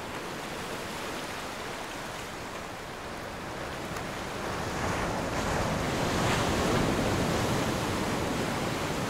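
Choppy open water and wind: a steady rushing wash of small waves that grows louder about halfway through.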